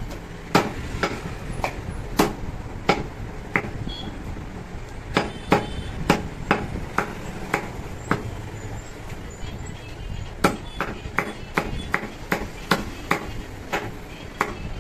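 Butcher's cleaver chopping mutton chest ribs into small pieces on a wooden log chopping block: sharp single chops about every half second to a second, a short pause, then a quicker run of about three chops a second.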